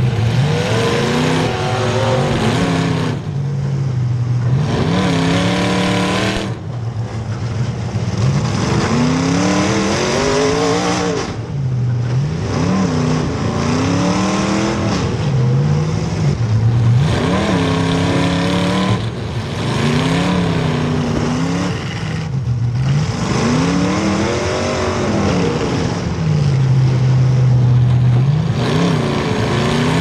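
Demolition derby car engines revving hard up and down again and again, over a constant din of engine and tyre noise.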